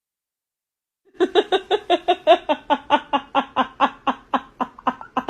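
A rapid run of laughter, about five short pitched "ha"s a second, starting about a second in after a moment of silence.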